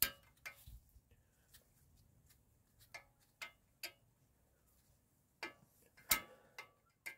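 Scattered sharp metallic clicks and clinks, about nine in all with the loudest about six seconds in, as the spring clip on a VW T5.1 front brake caliper is forced and hooked into place by hand.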